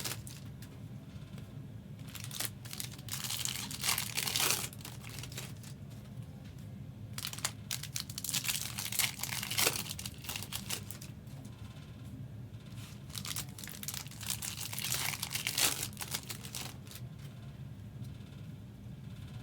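Trading card pack wrappers being torn open and crinkled, with cards shuffled by hand, in three main bouts of rustling that die down near the end.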